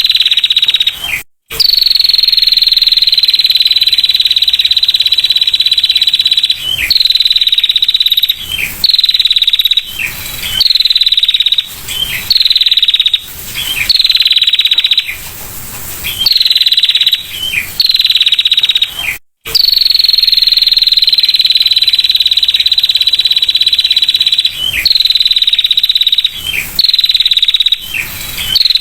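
Female bar-winged prinia giving its rapid, high, rattling 'ngetir' trill over and over. Each trill opens with a short falling note, then holds an even pitch for one to several seconds before a short break. The sound drops out completely twice, about a second in and again near the middle.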